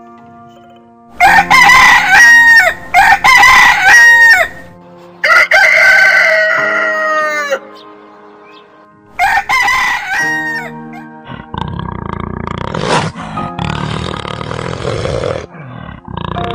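A rooster crowing several times, the calls pitched with a falling tail, over steady background music. From about eleven seconds in, a big cat growling takes over.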